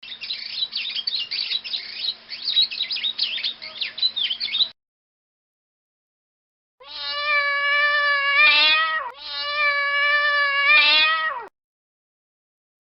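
Domestic cat meowing: two long, drawn-out meows about two seconds each, in the second half. Before them comes a few seconds of rapid, overlapping high squeaks.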